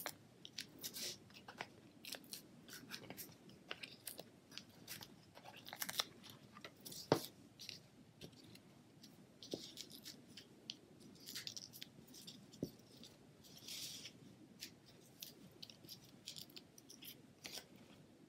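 Faint crinkles, rustles and small clicks of paper handling as Stampin' Dimensionals foam adhesive squares are peeled from their backing sheet and pressed onto a cardstock panel, with a sharper click about seven seconds in.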